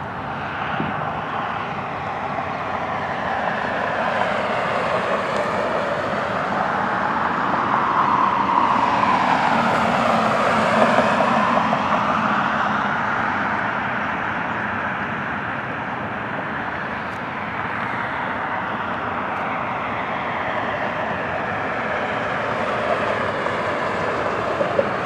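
Jet aircraft engine noise that swells to a peak about ten seconds in, with the sweeping rise and fall of an aircraft passing, then eases and builds again near the end.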